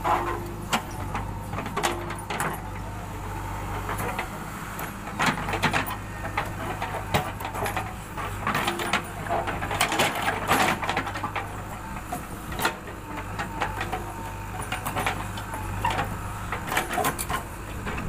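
JCB 3DX backhoe loader's diesel engine running steadily under load while the backhoe digs, with frequent sharp knocks and clatter as the steel bucket bites into and dumps clumps of soil.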